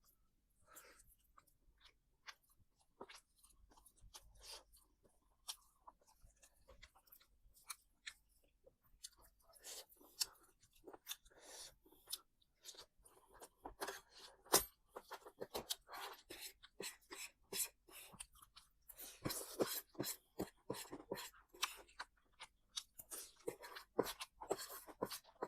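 Close-up chewing and crunching of food, with irregular crunches and mouth clicks that grow denser and louder in the last several seconds.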